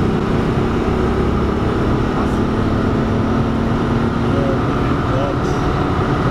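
Turbocharged VR6 engine of a VW Golf 2 droning steadily with tyre and wind noise, heard from inside the cabin while cruising at motorway speed.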